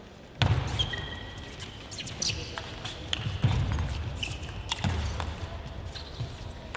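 Table tennis match play: sharp clicks and dull thuds with a few brief squeaks, starting suddenly about half a second in, over a haze of noise.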